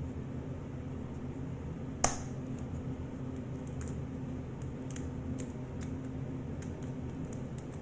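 Kitchen handling sounds over a steady low hum: one sharp knock about two seconds in, then scattered light clicks and taps as a hand works an egg over a clear plastic container.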